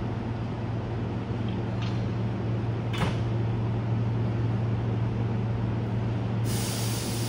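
Hankyu 8000-series electric train moving slowly alongside the platform, with a steady electrical hum. There is a short sharp hiss of air about three seconds in, and a loud burst of air hiss from the brakes begins near the end.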